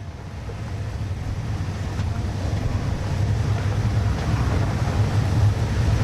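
Low, steady engine rumble of a moving vehicle with wind noise on the microphone, fading in and growing louder.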